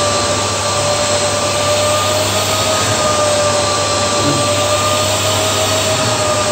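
Motorised blower used as a blow-drying machine, running steadily: a constant rush of air with a steady whine.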